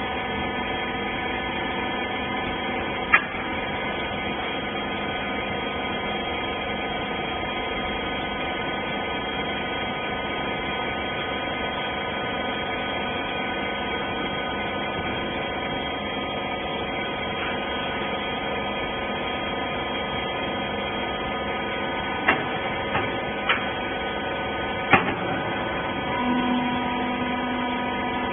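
Hydraulic rag baler running with a steady hum, its pump and motor holding several steady tones. A sharp knock comes about three seconds in, and a quick cluster of knocks comes near the end.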